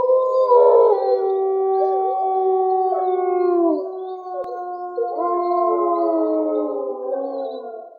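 A chorus of wolves howling, several long overlapping notes held together, some sliding down in pitch, fading out near the end.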